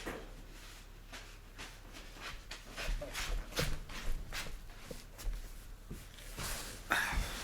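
Shuffling, rustling and small knocks of a person moving about on the floor and handling things, with a louder rustle near the end.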